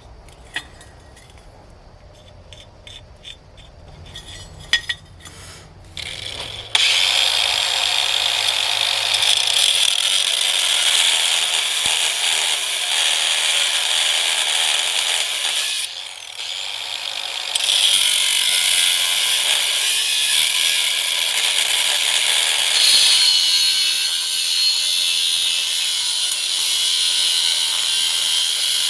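A handheld power tool working on steel, a steady hissing whir that starts about seven seconds in and runs on with a short break in the middle. Before it come a few light clicks and knocks.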